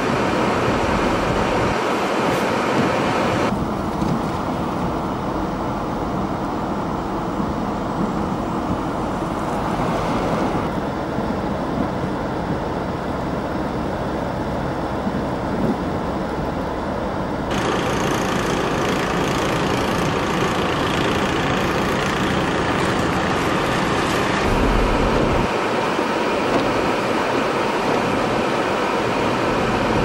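Blizzard wind blowing hard on the microphone, mixed with the sound of vehicles on a snow-covered road. The sound changes abruptly about every seven seconds as the shots change.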